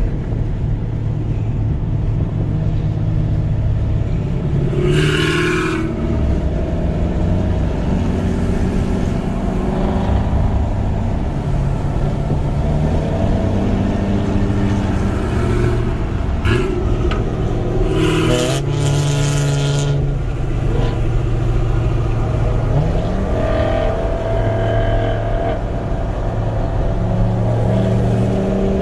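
Car engine and road noise heard from inside a car cabin at highway speed. The engine drone is steady and shifts in pitch several times, with brief hissing bursts about five seconds in and again around eighteen seconds in.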